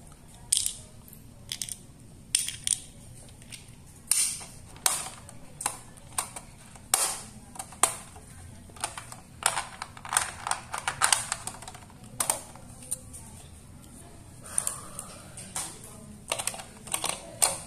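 Hard plastic Playmobil toy parts clicking and clattering as they are handled and fitted into a toy police car, an irregular string of sharp clicks.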